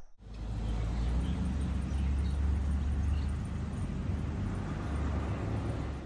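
A car on the move: steady low rumble of engine and tyres on the road.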